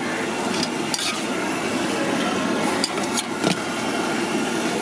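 Steady background hubbub of a roadside food stall, with a few short, light clicks and rustles of handling.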